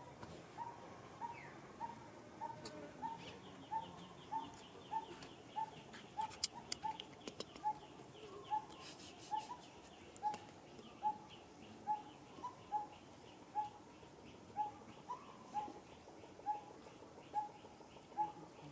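A bird repeating a short, mid-pitched call note over and over at a steady pace, about three every two seconds. A few seconds in, a faster, higher-pitched chirping series joins it, with a few sharp clicks around the middle.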